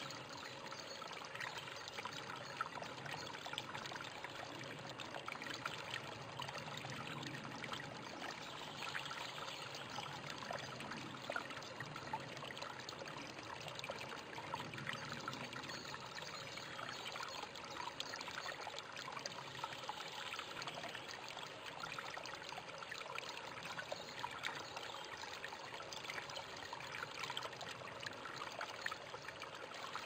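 A thin trickle of water falling off a rock ledge into a shallow pool: a steady splashing with many small droplet splashes.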